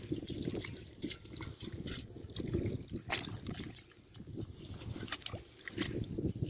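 Hands digging and squelching through wet mud and shallow water, with trickling water and irregular small splashes and clicks; one sharp click about three seconds in is the loudest.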